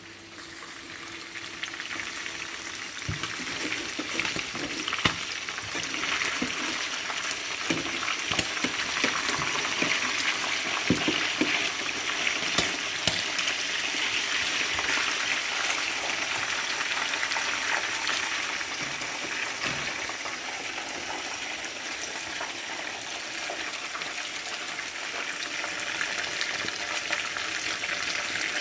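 Food sizzling as it fries in hot oil in a pan; the sizzle builds over the first couple of seconds. Scattered knocks of a utensil against the pan come through the first half.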